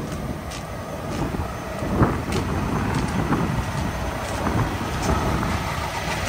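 Heavy truck diesel engine idling with a steady low rumble, with footsteps in wet slush about once a second and a single knock about two seconds in.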